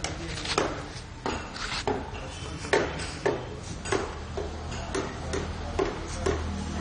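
A boxer and a pug play-fighting: irregular clicks, knocks and scuffs from their paws and claws, about two a second, over a low background hum.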